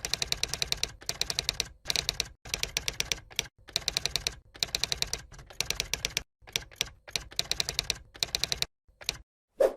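Typewriter keys clacking rapidly in short bursts with dead-silent pauses between them, like words being typed out, and one louder, duller knock near the end.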